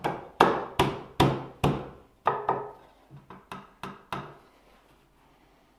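A series of about a dozen sharp knocks on short round wooden dowels clamped upright in a bench vise, struck by hand. They come loud and evenly, about two or three a second, for the first two seconds, then grow softer and more spaced and stop a little over four seconds in.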